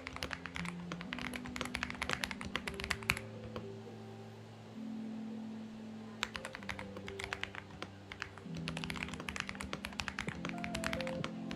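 Typing on a Xinmeng X98 mechanical keyboard: quick runs of key clicks that stop for about three seconds midway, then resume, over soft background music.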